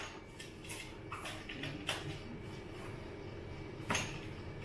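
Handling noises of unpacking a folding bicycle: scattered short rustles and clicks of cardboard and foam packaging being pulled off the frame, with a sharper knock about four seconds in.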